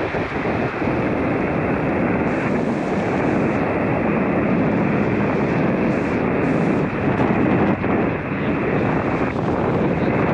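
Steady rushing noise of wind on the microphone during a parachute canopy descent. It is mixed with the hiss of an ICOM IC-705 HF receiver tuned to the 20 m band, left open to listen for replies between CQ calls.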